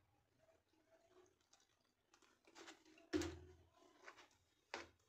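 Metal spoon stirring wheat flour and water in a plastic bowl: faint scraping, then a few sharp knocks, the loudest with a dull thud about three seconds in.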